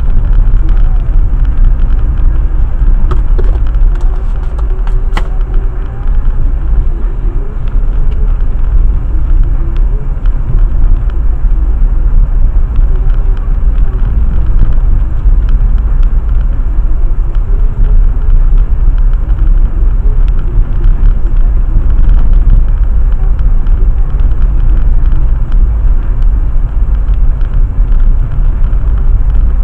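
Jeep Compass Trailhawk driving slowly over a rough gravel road, heard from inside the cabin: a steady, loud, low road rumble from the tyres and suspension, with scattered small clicks and a sharp tick about five seconds in.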